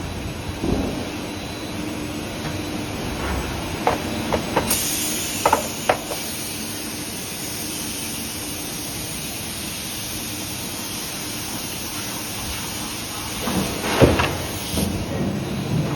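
Forging shop machinery running with a steady hum, with sharp metal clanks about four to six seconds in and again near the end. A high hiss starts about five seconds in and stops about ten seconds later.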